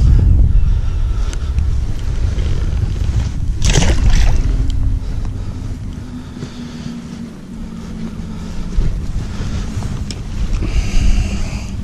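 Wind buffeting the microphone with a loud, rough rumble that eases after about five seconds. A faint steady low hum comes in then, with a sharp crackle just before it and brief rustles near the end.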